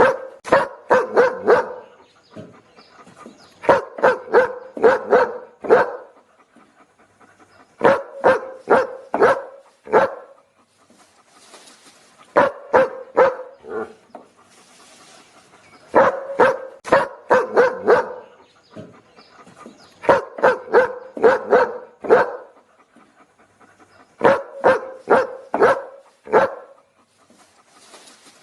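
A dog barking in quick bursts of several barks each, a burst about every four seconds with short pauses between.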